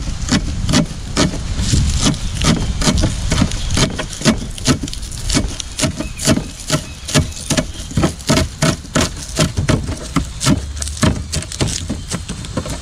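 A knife chopping on a cutting board: a long run of sharp, even strikes, about three a second, chopping coarsely. Wind rumbles on the microphone underneath.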